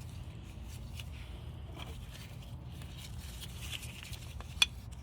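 Small scrapes and light clicks of a brake pad and its metal shim being handled and fitted, with one sharp click about four and a half seconds in.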